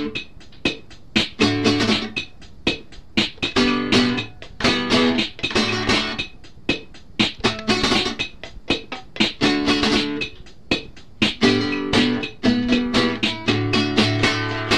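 Instrumental passage of a song without vocals: guitar playing chords over a steady rhythm.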